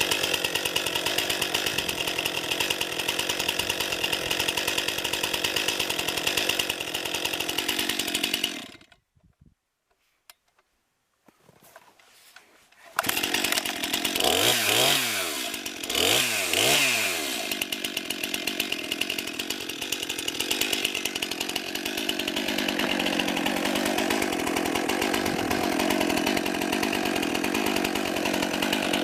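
Two-stroke chainsaw running, with a gap of near silence about nine seconds in; when it returns the engine is revved up and back down twice, then runs steadily.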